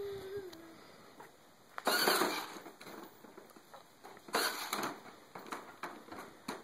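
A toddler gives a brief babbling vocal sound, followed by two short scraping, rustling noises and a few light knocks.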